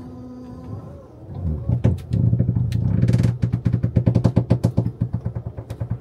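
The engine of the machine lowering the load runs and picks up about two seconds in, then keeps going with a rapid, even pulsing.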